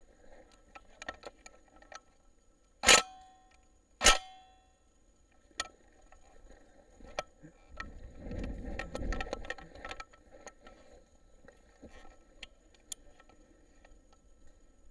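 Two sharp shots about a second apart from the gun carrying the scope camera, each followed by a brief metallic ring. Scattered light clicks and a low handling rumble follow, about eight to ten seconds in.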